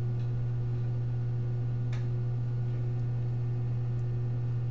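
Steady low electrical hum, one unchanging tone, with a faint click about two seconds in.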